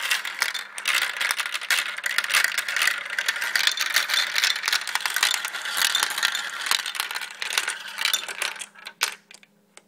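Many marbles rolling and clattering down a marble run, a dense rattle of clicks that thins out after about eight seconds to a few scattered clicks near the end.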